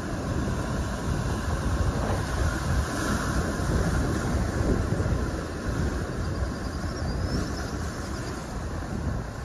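Ocean surf washing and breaking over shoreline rocks, a steady rush of noise with a deep, churning low end.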